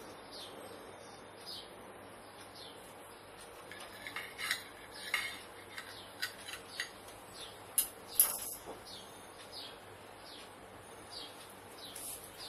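Kitchen knife cutting through a bread sandwich and knocking and scraping on a ceramic plate: a cluster of sharp clicks and taps from about four seconds in, loudest near eight seconds. Behind it a bird repeats a short falling chirp about every half second.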